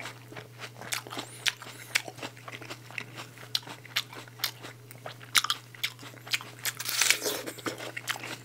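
Close-up chewing of a firm raw apple: irregular wet crunches as the flesh is bitten and chewed, with a louder crunch about seven seconds in.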